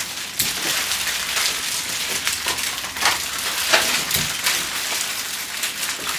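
Wrapped candies and plastic rustling and crinkling as they are handled, a dense run of many small irregular crackles and clicks.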